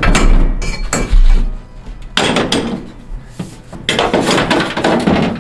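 Metal clattering and knocking in three short bouts, with a heavy thud in the first, from loose tools and steel on the bare sheet-metal floor of a stripped truck's cargo area.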